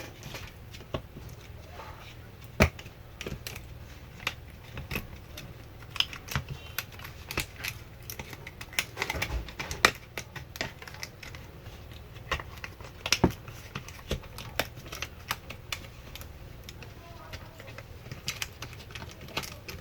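Irregular sharp clicks and taps of small parts and tools being handled while working on a laptop battery pack, over a steady low hum.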